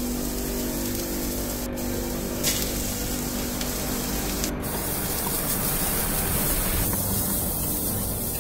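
Vegetables (carrot, green onion and peas) sizzling in hot oil in a frying pan, a steady hiss.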